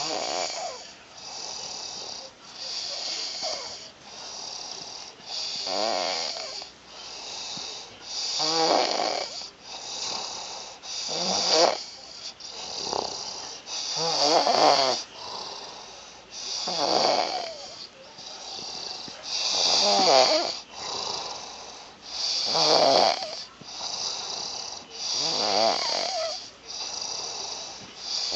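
A man snoring steadily in his sleep. A loud rattling snore comes about every three seconds, with a softer breath in between.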